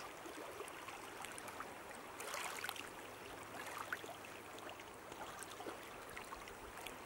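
Shallow river water lapping and trickling over a pebble shore: a steady wash dotted with small ticks and trickles, a little louder about two seconds in.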